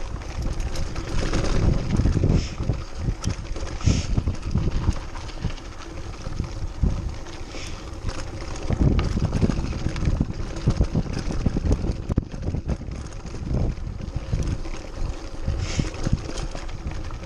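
Mountain bike descending rocky singletrack with wind buffeting the microphone, and irregular knocks and rattles from the bike and its tyres over loose rock.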